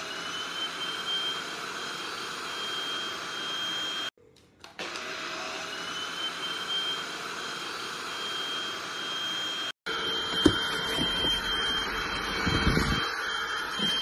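Cordless stick vacuum cleaner running: a rush of suction air with a steady high motor whine. The motor cuts out about four seconds in and spins up again with a rising whine. Near the end there are a few dull handling thumps.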